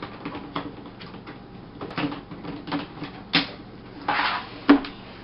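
Hard plastic clicks and knocks from a laptop battery being pushed and snapped into its bay, with a short scrape a little after four seconds and a sharper click near the end.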